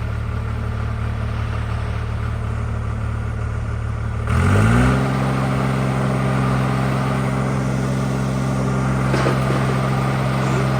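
Skid steer engine running steadily, then revved up about four seconds in and held at a higher, steady speed as the machine goes to work pulling.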